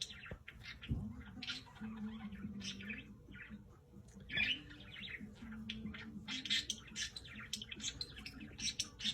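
Pet parrot chirping and squawking in many short, quick calls, with a few louder squawks about a second and a half in and again near the end.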